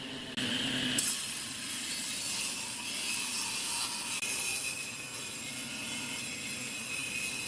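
Table-saw blade cutting a pine board: steady sawing noise over a faint high whine, getting louder about half a second in as the blade bites into the wood, with a brief knock at about a second.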